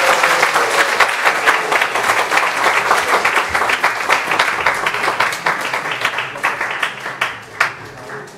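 Audience applauding, the clapping thinning out and dying down toward the end.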